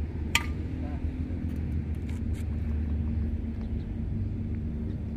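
Steady low rumble of a running engine, with one sharp click about half a second in and a few faint ticks a couple of seconds later.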